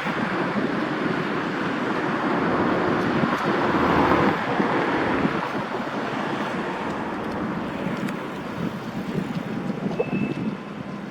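Diesel locomotive passing over points, loudest about four seconds in and then fading away. A brief high wheel squeal is heard near the end.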